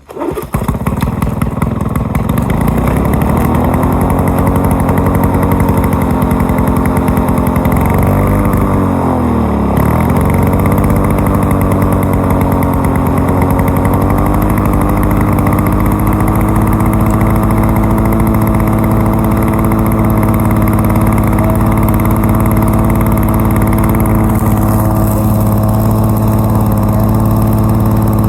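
1987 Lawn-Boy 8073B mower's two-stroke engine catching right at the start and revving up to a steady run; about eight seconds in its speed sags and recovers, then it runs on evenly.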